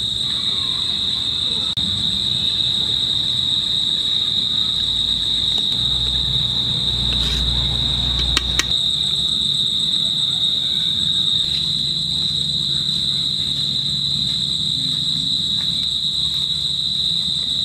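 Insects chirring: a steady, high, unbroken drone. A few light knocks come near the middle as a spoon scrapes rice out of a clay pot.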